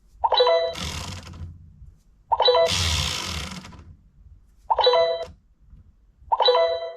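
Fisher-Price Linkimals Learning Narwhal electronic toy playing a short bell-like chime four times, about every two seconds. The first two chimes are each followed by a rushing noise lasting a second or so.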